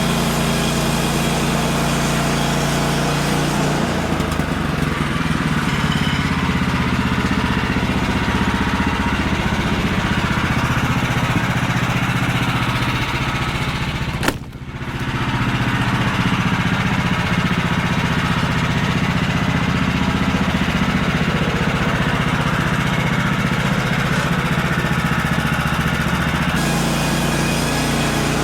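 Small gasoline engine of a Woodland Mills HM126 portable bandsaw mill running steadily, most likely as the band blade cuts a treated utility pole log into 4x4s. There is a sharp click with a brief drop in level about halfway through.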